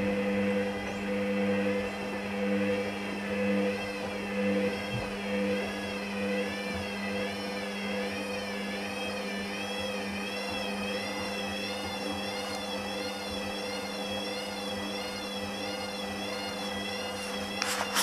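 Hoover Dynamic front-loading washing machine with its drum spinning at a steady speed: a steady motor whine that swells and wavers about once a second as an off-balance load goes round, while the machine tries to re-balance it on its second spin attempt. A few sharp clicks come near the end.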